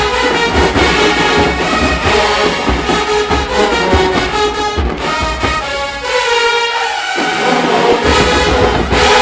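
HBCU marching band playing at full volume, brass horns over pounding bass drums. About six seconds in the drums drop out while the horns hold long chords, then the full band comes back in near the end.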